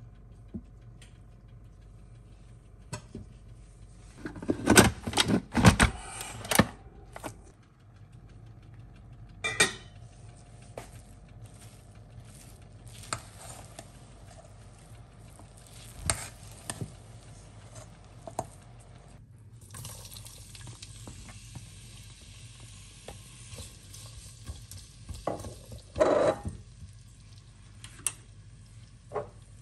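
Utensils stirring in cooking pots, with bursts of knocking and scraping against the pot sides. From about two-thirds of the way through, onion and tomato fry in oil with a steady sizzle.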